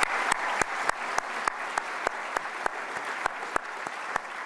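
Audience applause in an auditorium, with one person's claps close to the microphone standing out, about three a second; the applause gradually dies down.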